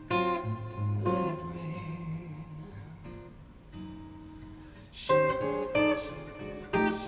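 Instrumental break of a recorded song: plucked guitar notes ringing over a bass line, with louder picked notes about five and seven seconds in. It is played back through KEF 103.2 hi-fi loudspeakers into a room.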